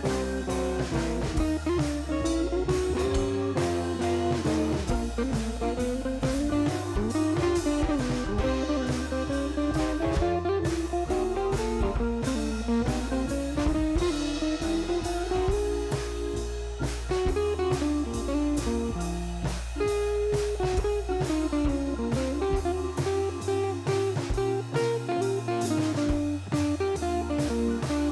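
Instrumental background music: a guitar melody wandering over a steady drum beat and bass, in a bluesy style.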